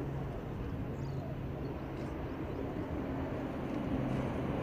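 Three C-130J Super Hercules four-engine turboprop transports flying overhead in formation: a steady, low propeller drone with a constant hum.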